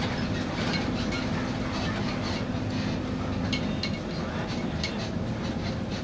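Airport apron shuttle bus heard from inside the cabin while driving: a steady engine and road rumble, with frequent short clicks and rattles from the bus body.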